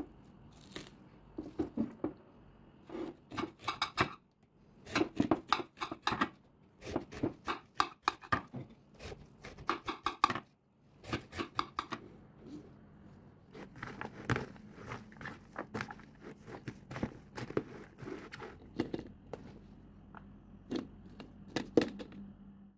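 Crisp crunching and cracking of a watermelon and its rinds being cut and broken apart, in quick irregular strokes with a couple of short pauses.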